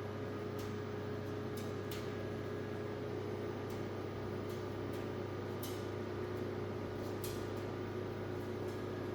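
Steady machine hum with a constant tone, like an appliance or fan running, with a few faint scattered clicks.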